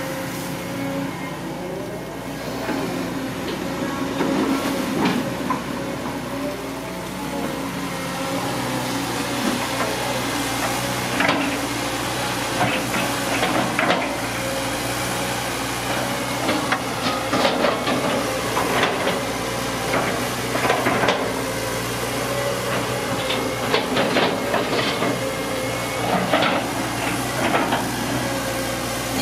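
Cat long-reach hydraulic excavator working: its diesel engine runs steadily under hydraulic hiss, while the bucket and boom knock and clank repeatedly against the earth bank, the knocks coming thickest in the second half.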